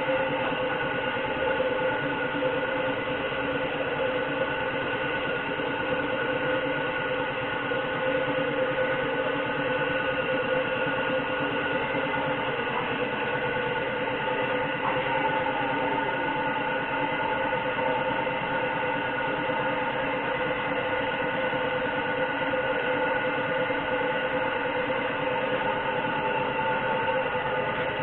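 Steady mechanical drone with several held tones, unbroken throughout, with one tone sliding briefly about halfway through.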